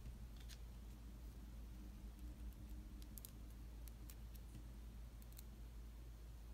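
Scattered light clicks and taps of a small hand tool and plastic parts as an opened laptop's ribbon cable and components are fitted back in, a few clicks coming in quick pairs, over a low steady hum.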